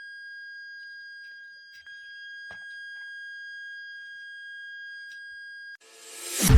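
Electronic buzzer sounding one steady high-pitched tone, broken briefly near two seconds in, until it cuts off near the end. A rising whoosh then swells in.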